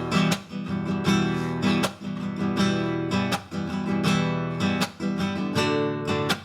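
Acoustic guitar music, strummed chords with a steady rhythm.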